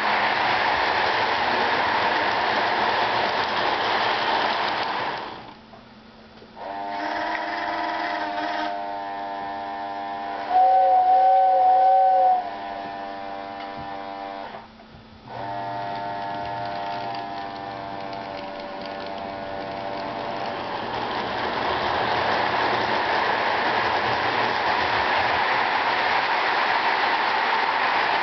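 Lionel General 4-4-0 toy steam locomotive running on its track with a steady hissing running noise. About seven seconds in, a whistle sounds in long held blasts through the middle, loudest and wavering in a two-second burst near the middle. The running noise returns for the last third.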